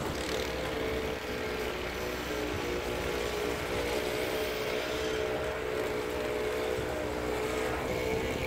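Honda Ridgeline's V6 engine running with a steady hum and low rumble as the truck drives with the rear-hitch wooden snow plow.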